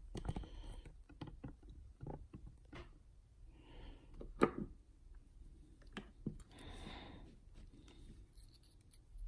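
Small scattered clicks and soft scrapes of tools and metal lock parts being handled while the driver pins are worked out of a lock housing, with one sharper click about four and a half seconds in.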